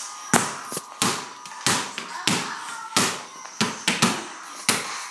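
Small mini-hoop basketball bouncing in a steady dribble, about seven sharp bounces roughly two-thirds of a second apart, each with a short ring.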